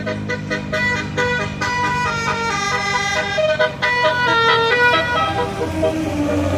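Musical 'telolet' (basuri) air horn playing a fast tune of short, changing notes, with road and engine rumble underneath.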